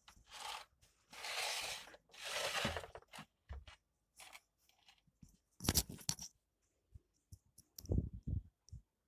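Parboiled basmati rice tipped from a plastic basket into a steel pot, three rustling pours in the first three seconds. Then scattered sharp clinks and knocks as a steel bowl and spoon of fried vegetables scrape against the pot, the loudest a little before halfway and again near the end.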